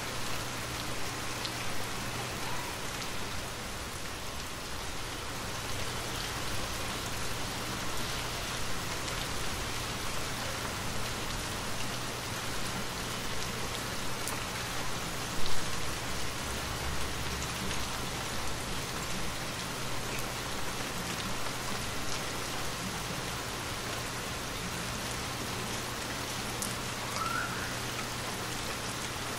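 Steady rain falling, an even wash of drops hitting wet surfaces, with a brief louder thump about halfway through.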